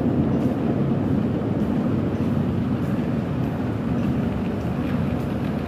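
Steady low rumble of an underground metro station heard from a moving escalator, with no distinct knocks or tones standing out.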